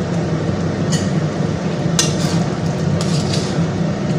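A spatula stirring a thick simmering curry in an aluminium wok, with a few sharp clinks against the pan about one, two and three seconds in, over a steady low hum.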